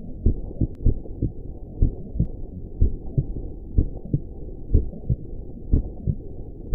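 Heartbeat sound: a low double beat (lub-dub) about once a second, over a steady low rumble.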